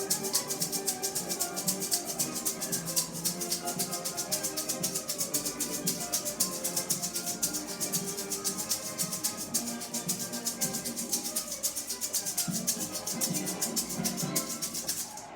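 A maraca shaken in a fast, even rhythm along with recorded instrumental music. Both stop suddenly just before the end.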